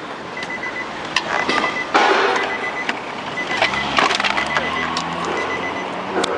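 Plastic trim clips of a car's interior door panel cracking and snapping as the panel is pried loose, with a crackling burst about two seconds in. A low engine hum comes in about halfway through.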